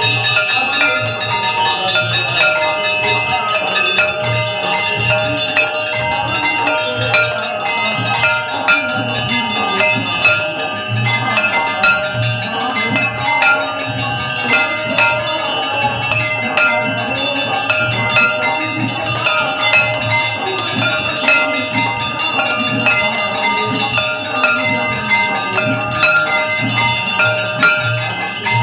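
Aarti music: temple bells and chimes ringing continuously over a steady low drum beat.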